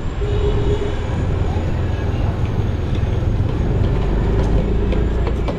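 Motor vehicle engines and road noise in street traffic, a steady low rumble.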